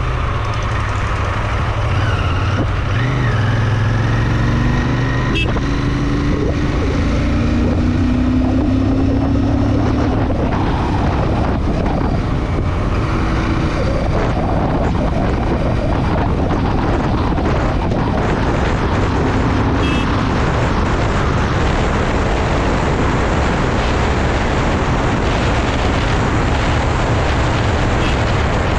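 Royal Enfield Interceptor 650's parallel-twin engine pulling hard on the road, its note rising in the first ten seconds or so and then holding steady at speed. Wind rush on the microphone grows as the speed builds.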